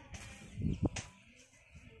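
Footsteps on wet, muddy ground, a few uneven low thuds, with a bird chirping faintly.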